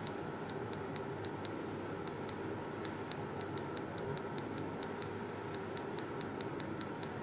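Rapid small clicks, about four a second, from the up button of an SMC ZK2 digital pressure switch being pressed over and over to step the hysteresis setting up. A steady low hum runs underneath.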